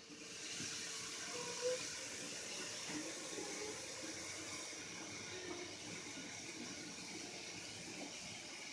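Kitchen faucet running steadily into a cooking pot, filling it with water; the rush starts about half a second in.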